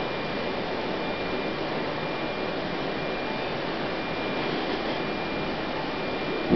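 Steady background hiss with a faint high steady tone in it, like room or recording noise.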